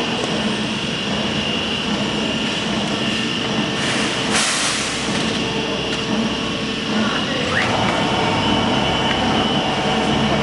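CNC plasma cutting machine cutting: a steady, loud hiss with a constant high whine, swelling into a brief louder hiss about four seconds in.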